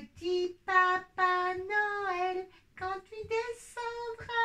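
A high, child-like voice singing unaccompanied, holding long notes, stepping up to a higher note a little after halfway.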